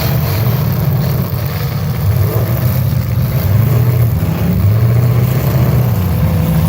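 Demolition derby car engines running and revving as a loud, steady low rumble.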